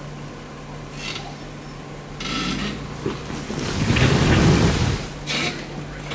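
Jeep Wrangler crawling over rocks at low speed: the engine runs with a steady low hum while the tyres crunch and grind over loose rock. There are several scrapes, the loudest and longest about four seconds in.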